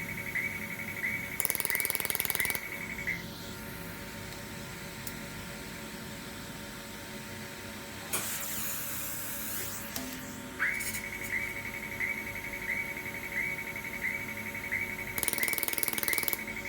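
YAG pulsed laser welder firing rapid trains of pulses, heard as two roughly one-second bursts of quick crackling, one early and one near the end. Under them runs a steady high tone with a regular chirp about every 0.7 s; it drops out for several seconds in the middle, when a hiss is heard instead.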